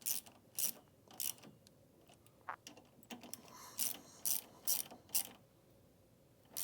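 Hand ratchet wrench clicking in short strokes while the mounting bolts of the adjustment plate are tightened: three strokes at the start, a pause, then a quicker run of about six strokes.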